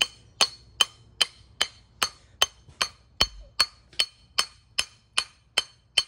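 Hammer blows on a hand-forged steel hammerhead, driving a metal ring in to lock the head onto its wooden handle. The blows come in a steady rhythm of about two and a half a second, each a sharp metallic clink with a brief ring.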